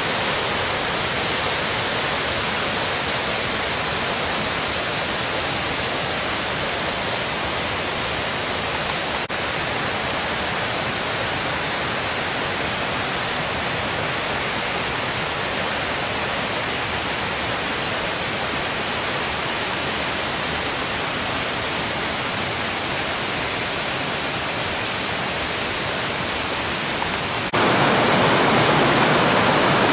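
Steady rush of a mountain stream and waterfall tumbling over rocks. Near the end it suddenly gets louder and brighter as closer rapids over boulders take over.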